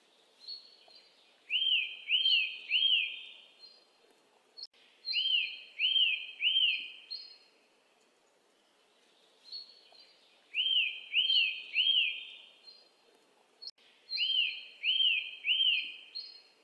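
Bird song: a phrase of a few thin high notes followed by three loud, arching notes, repeated four times, about every four and a half seconds.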